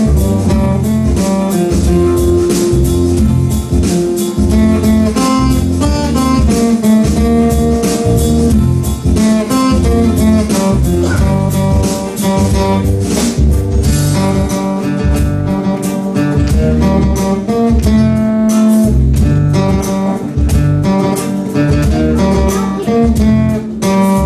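Acoustic guitar strumming together with an electronic keyboard, playing a piece of music with a steady rhythm.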